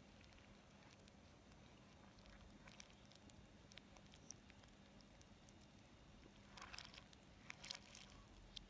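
Faint crackling and small splashes of milk pouring over chocolate cereal in a bowl, played backwards, with a low steady hum underneath. The crackles are scattered and sparse, with a denser burst about three quarters of the way through.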